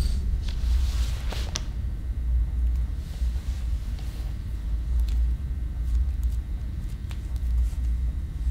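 Low, steady rumbling drone of a horror-film soundtrack, with a faint rustle about a second in and a few faint clicks later on.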